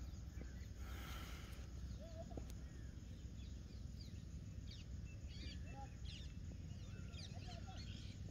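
Evening outdoor ambience of birds chirping and calling, short high calls that grow busier near the end, over a steady low rumble. A brief hiss about a second in.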